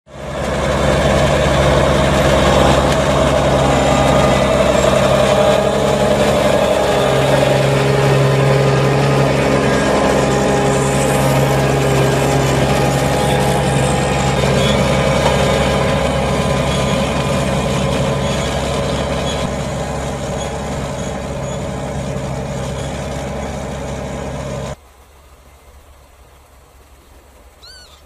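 New Holland T7.185 tractor engine running steadily under load while pulling a Kverneland five-furrow reversible plough. About three seconds before the end it cuts off abruptly to a quiet outdoor background with one short faint chirp.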